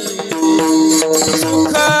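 Bhajan accompaniment: hand-drum strokes, the low strokes sliding down in pitch in the manner of a tabla, over a held melodic drone and an instrumental line.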